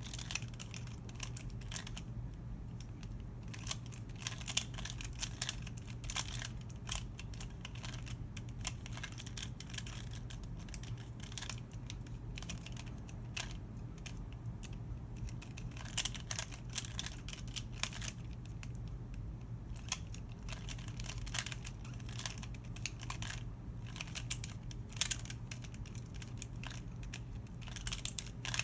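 Plastic Square-1 puzzle being twisted and sliced by hand: a run of quick, irregular clicks and clacks as the layers turn, over a low steady hum.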